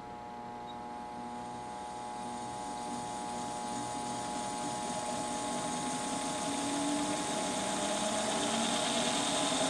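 Early-style rotating-armature AC generator run as a DC motor from a small power supply: a steady motor hum and whine that grows slowly louder and rises a little in pitch as the armature spins up.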